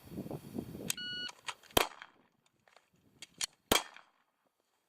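Shot timer beep about a second in, followed by several pistol shots over the next few seconds, the loudest near two seconds and near four.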